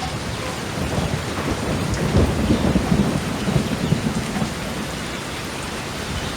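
Steady rain with a roll of thunder that swells about a second in, rumbles most strongly for a couple of seconds, then dies back into the rain.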